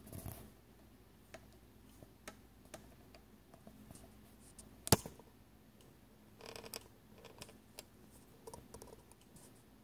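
Scattered light clicks and taps, with one much louder sharp click about five seconds in and a quick cluster of clicks about a second and a half later.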